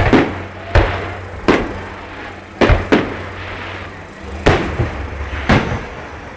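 Fireworks shells bursting overhead: about eight sharp, loud bangs at uneven intervals, two of them close together near the middle, each with a short echo.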